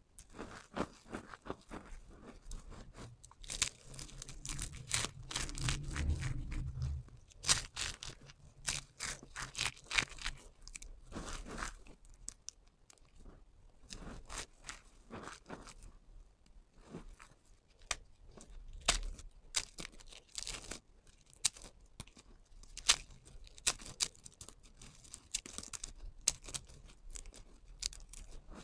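Dry, crisp soap shavings and cut soap pieces crushed and crumbled between the fingers: irregular crunches and crackles, busiest a few seconds in, with a dull low pressing sound under that stretch.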